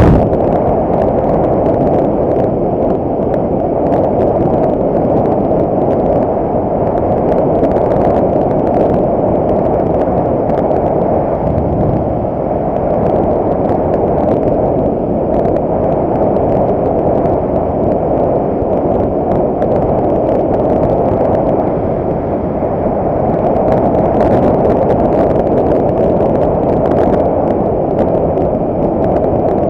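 Moving motorcycle heard from a camera beside the rider's helmet: loud, steady wind rush over the microphone with road and engine noise underneath.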